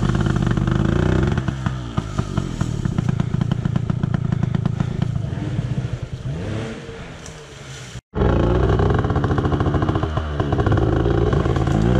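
Dirt bike engine revving over rough ground, its pitch rising and falling as the throttle is worked. It fades somewhat about six seconds in, cuts out abruptly for an instant just after eight seconds, then comes straight back loud.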